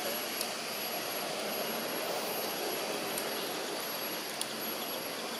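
Steady outdoor background noise, a broad even rumble like a distant aircraft or traffic, under a thin, constant, high-pitched insect whine, with a few faint sharp clicks.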